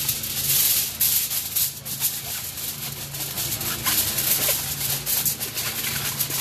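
Aluminium foil crinkling and rustling in irregular crackly bursts as gloved hands fold and press it tightly around a brisket.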